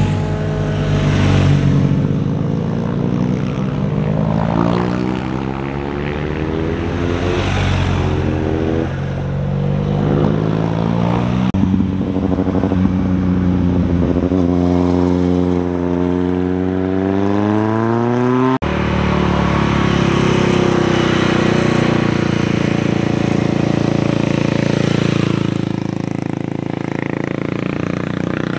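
Motorcycles riding through a tight bend one after another, each engine rising in pitch as the bike accelerates out of the curve. The sound cuts off suddenly about two-thirds of the way through and another bike's engine takes over.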